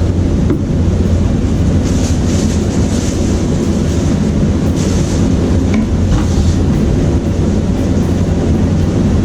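A steady low rumble of background noise, with soft rustling of packaging as the sneakers are taken out of the box, about two seconds in and again around five to six seconds.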